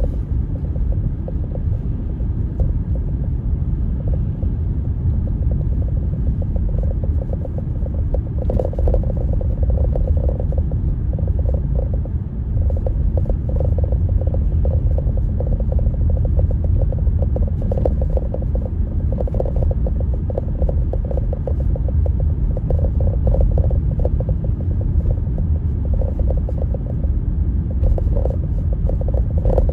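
Blizzard wind buffeting the microphone: a loud, steady low rumble that flutters stronger at times.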